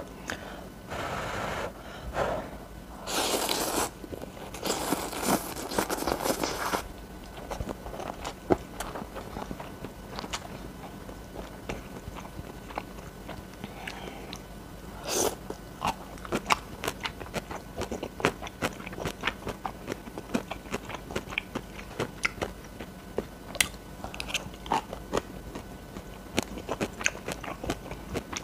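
Close-miked eating: several loud slurps of instant cup noodles in the first seven seconds, then steady chewing with many short, sharp crunches from fried bugak crisps.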